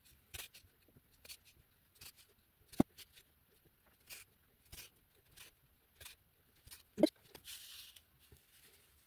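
Soft, irregular clicks and rustles of a metal yarn needle and yarn being worked through a crocheted amigurumi piece, with two sharper ticks, one about three seconds in and one about seven. Just before the end a short hissing rustle as the yarn strand is drawn through and pulled out long.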